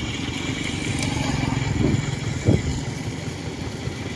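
A combustion engine running steadily with a low, rapid chugging, swelling a little toward the middle, with a short knock about two and a half seconds in.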